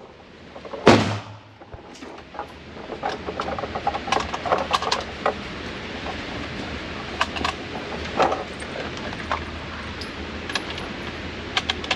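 A loud gunshot about a second in, followed by many quieter, irregular sharp cracks and clicks of more shooting and handling.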